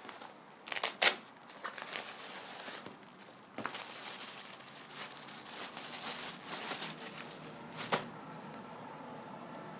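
Goalkeeper-glove packaging being handled and opened: crinkling and rustling in bursts, with a sharp snap about a second in and another near the end.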